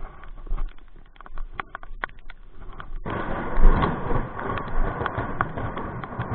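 Rain: scattered drops tick sharply on a surface close to the microphone, then about halfway through a dense steady hiss of heavier rain sets in suddenly, with drops still ticking on top.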